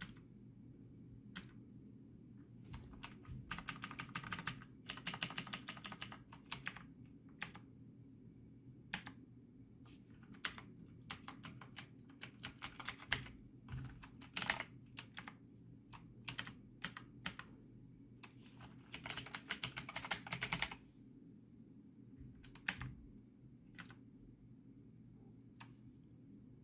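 Motospeed CK101 mechanical keyboard with clicky Outemu Blue switches being typed on: scattered single keystrokes and several fast runs of typing, each lasting a second or two. A steady low hum sits underneath.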